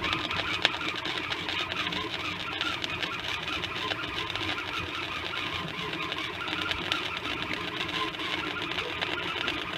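Flux-core wire welder arc crackling steadily as a bead is run on steel sheet, starting abruptly.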